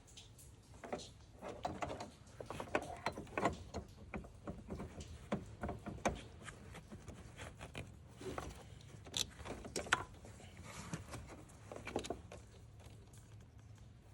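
Irregular small plastic clicks, scrapes and rattles as an LED headlight bulb is fitted into a headlight housing and its plug-and-play connector is pushed home, with one sharper click about nine seconds in.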